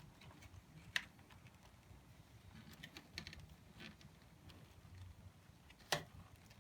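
Scattered light clicks and taps of hands working with small metal parts and tools, with two sharper clicks, one about a second in and one near the end.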